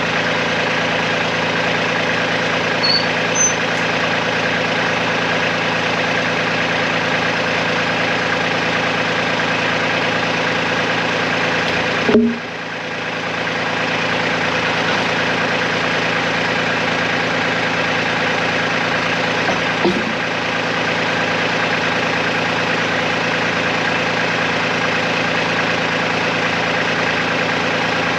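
Tractor engine running steadily at a constant speed, with a sharp knock about twelve seconds in and a couple of faint clicks.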